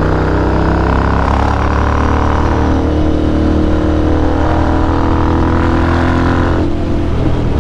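Motorcycle with a full-system aftermarket exhaust running steadily on light throttle while riding, the rider holding the revs down to pass quietly.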